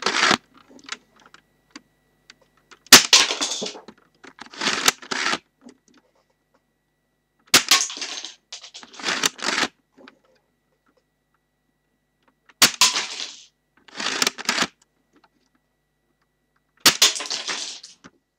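Lego brick model rifle being fired: a sharp plastic snap with a short rattle, then a second plastic clatter about a second and a half later. The pair repeats four times, roughly every five seconds.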